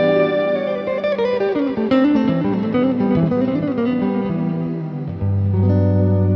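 Electric guitar played through reverb and delay pedals: a ringing chord, then a run of single notes whose tails overlap, then a new chord with a low note struck about five seconds in.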